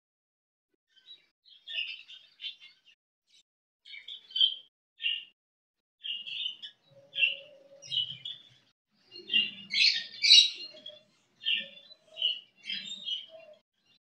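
Budgerigars chirping: a string of short, high cheeps with gaps between them, coming faster and loudest about ten seconds in.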